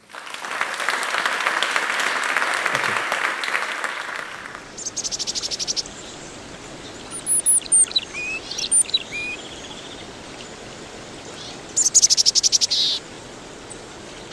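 Audience applauding for about four seconds, fading out. Then a nature soundscape over a steady hiss: short rising and falling bird chirps, and two bursts of rapid high trills, about five seconds in and again near the end.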